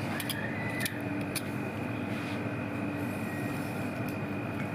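A steady mechanical hum with a held low tone and a held high tone, with a few light clicks and scrapes from a knife peeling a fresh galangal root.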